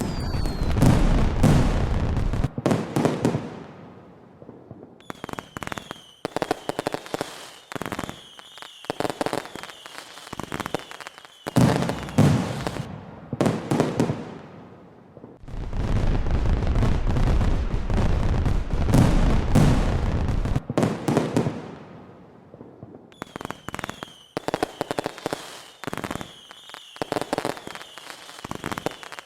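Fireworks going off: stretches of deep, rumbling booms alternate with stretches of rapid crackling and popping, with a high whistle running over the crackle.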